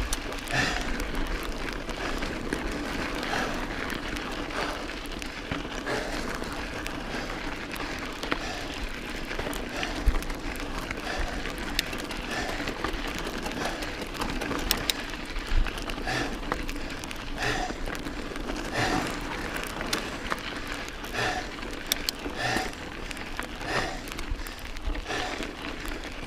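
Mountain bike rolling over a rocky dirt trail: a steady crunch of tyres on gravel mixed with wind on the microphone, with sharp knocks and rattles from the bike as it hits stones. The rider's hard breathing comes through about once a second in the second half.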